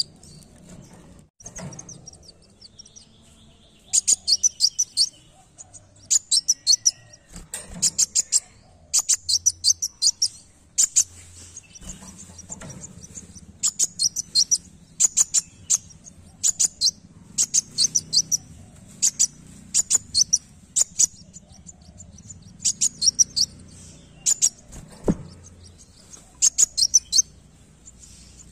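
Male ruby-cheeked sunbird (kolibri wulung) singing: short phrases of rapid, high, thin chirping notes, each under a second long, repeated every second or two.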